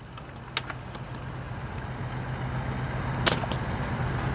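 Steady outdoor background noise with a low hum that slowly grows louder, and two short sharp clicks: one about half a second in and one near the end.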